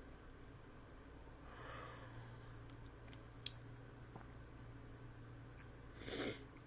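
Quiet room with a person's faint breathing: a soft breath about two seconds in, a single small click, and a short sharp breath near the end, the loudest sound.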